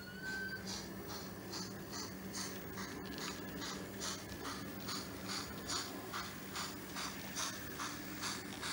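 Model steam locomotive's sound system: a whistle trailing off at the very start, then a steady, even steam chuff at about two and a half beats a second over a low motor hum as the locomotive runs.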